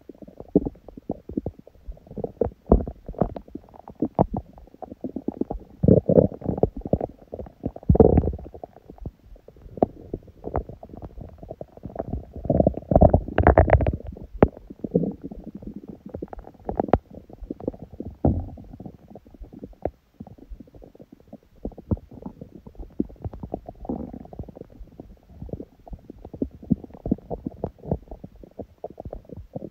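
An empty stomach growling from hunger: a steady run of small pops and bubbly gurgles over low rumbling, swelling into longer, louder gurgles about six, eight and thirteen seconds in.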